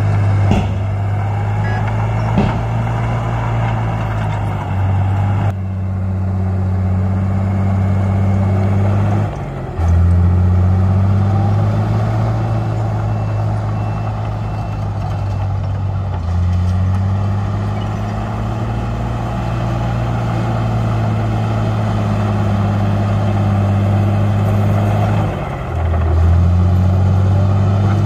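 Heavy diesel engine of earthmoving machinery running under changing load, its note stepping up and down several times as the machine works. A faint intermittent beeping is heard in the middle.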